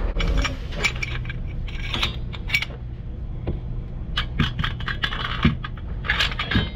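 Metal parts of racing coilover shocks being handled on a workbench: light clinks, taps and scrapes as a coil spring is slid onto a shock body. The clicks come in two flurries with a quieter spell about three seconds in.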